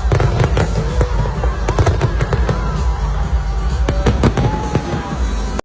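Fireworks display: many sharp bangs and crackles in quick succession over a continuous low rumble, with music playing beneath.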